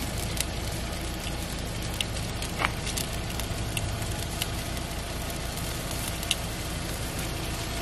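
Barbecue-sauced meat sizzling and crackling over hot charcoal on a wire mesh grill grate, with a few short sharp clicks as metal tongs touch the meat and grate.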